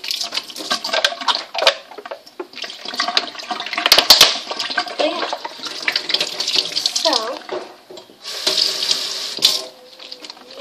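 Water sloshing and swirling inside a plastic water bottle as it is shaken and spun to form a vortex. The bottle's plastic clicks and knocks irregularly, with a cluster of sharp knocks about four seconds in.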